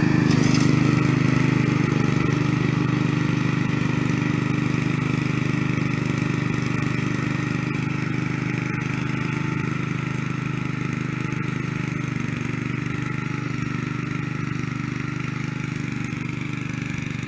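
Snapper rear-engine riding mower's 8 hp engine running steadily as it mows, with its blade engaged. The hum fades gradually as the mower moves away.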